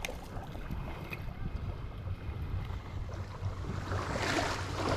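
Wind rumbling on the microphone; about four seconds in, irregular water splashing begins as a small hooked snook thrashes at the surface while being brought in.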